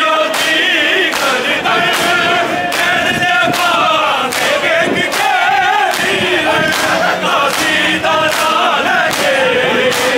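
A crowd of mourners chanting a noha, a Shia mourning lament, together. Under the voices runs a steady beat of maatam, hands striking chests, a little under two beats a second.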